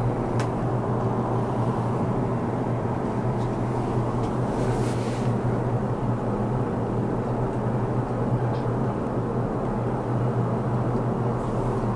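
Steady low mechanical hum and rumble inside a Ferris wheel gondola as the wheel turns, with a faint click about half a second in and a brief hiss around five seconds in.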